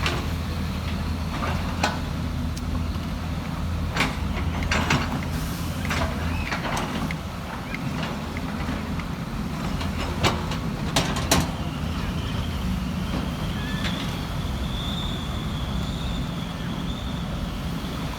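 Heavy diesel earthmoving machinery running steadily, with several sharp metallic knocks around four to five seconds and ten to eleven seconds in, and a thin high steady whine in the second half.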